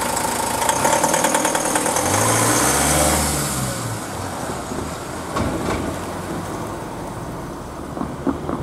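A car and a delivery van drive past and over the railway crossing. Their engines run with a quick rhythmic pulsing, and the van's engine note rises and falls as it passes close by. The sound fades after about four seconds, and a few sharp knocks follow near the end.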